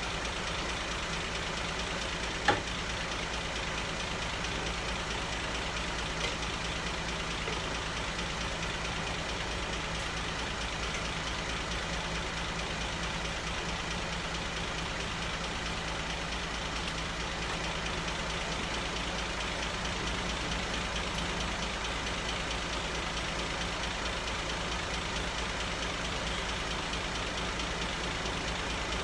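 Cadillac 3.6-litre V6 idling steadily on its first start after a total engine rebuild, with one sharp click about two and a half seconds in.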